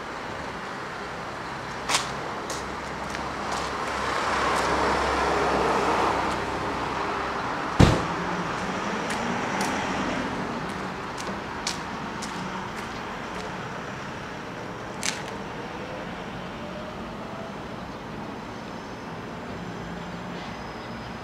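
Electric train approaching slowly through a station yard: a steady noise that swells a few seconds in, sharp clicks, the loudest about eight seconds in, and a faint rising whine later on.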